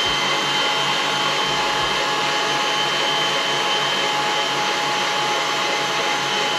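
Electric mixer running steadily at speed, whipping a hot sugar-syrup and gelatin candy mixture, with a steady high-pitched motor whine over the whirr.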